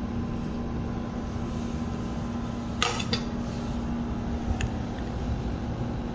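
Steady kitchen appliance hum, with a brief clink of kitchenware about three seconds in and a faint tick a little later.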